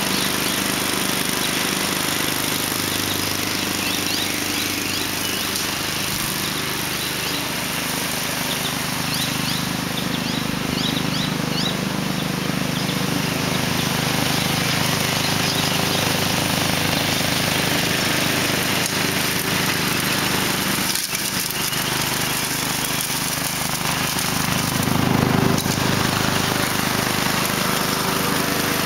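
Quad bike and towed homemade mower with a 14.5 hp Briggs & Stratton OHV engine running steadily while cutting grass, getting a little louder near the end as the rig comes close.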